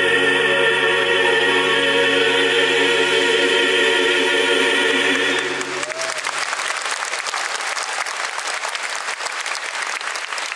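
A male classical-crossover vocal quartet and its accompaniment hold the song's final chord, cutting off about five and a half seconds in. An audience then breaks into loud, steady applause.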